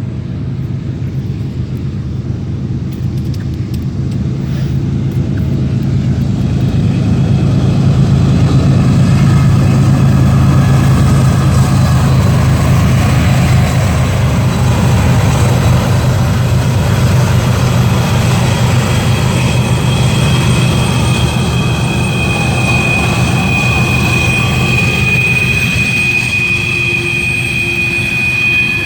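CSX intermodal freight train rolling past with a steady low rumble that swells over the first several seconds. In the second half a high, steady wheel squeal from the rail cars sets in and grows stronger toward the end.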